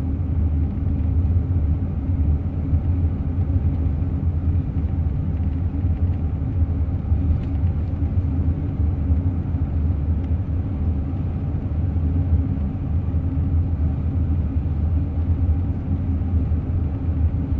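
Steady low rumble of a moving car, road and engine noise heard from inside the cabin.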